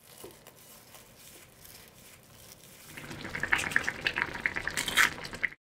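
Kimchi katsunabe broth simmering in a shallow pan: faint bubbling at first, then louder popping and crackling from about three seconds in, cutting off suddenly near the end.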